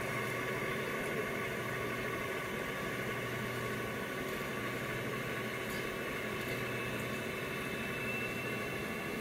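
Turbocharged six-cylinder diesel of an International 1206 tractor running steadily under load while pulling a long train of loaded hay racks.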